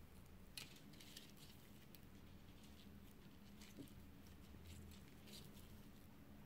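Faint scratchy rustling and a few soft ticks of sisal twine being wound by hand around a wooden napkin ring, over a low steady room hum.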